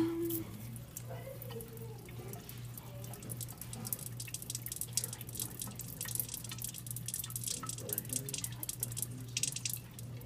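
Water dripping and splashing into a sink in quick, irregular ticks that grow busier partway through, over a steady low hum.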